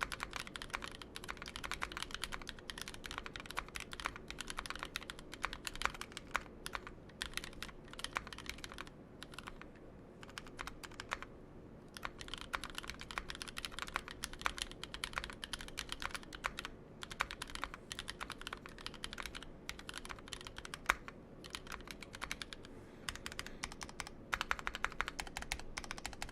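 Typing on a mechanical keyboard fitted with NovelKeys Cream linear switches, in an aluminium top-mount 60% board with a brass weight and GMK keycaps: a fast, continuous run of key clacks, with a short pause about eleven seconds in.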